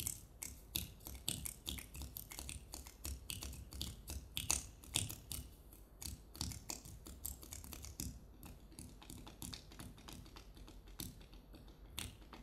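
Body percussion: a quick, uneven run of taps and clicks made on the body, with some soft low thumps among them.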